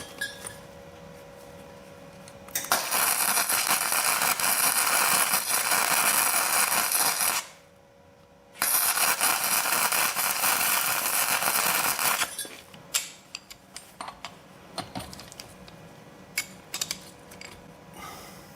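Electric arc welding a bolt onto a stuck part: two runs of crackling arc, about four and a half and three and a half seconds long, with a short pause between. A few light metallic clicks follow.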